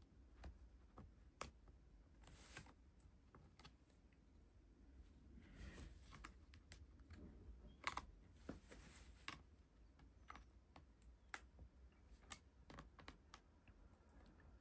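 Faint, scattered clicks and light scrapes of a small pry tool working at the edge of a laptop keyboard and its plastic top case, trying to break the plastic-welded studs that hold the keyboard down. A few clicks about a second and a half in, around eight seconds and around eleven seconds stand out from the rest.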